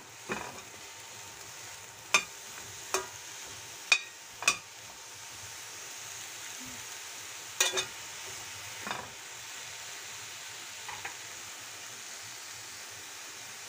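Eggplant pieces sizzling steadily in hot oil in a stainless steel pan, with a metal spatula clinking and scraping against the pan as they are stirred. The spatula strikes come a few at a time, mostly in the first nine seconds.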